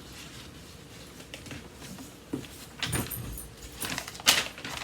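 Paper being handled as a printed quick guide is looked through: soft rustling with a few short, sharp crackles, the loudest near the end.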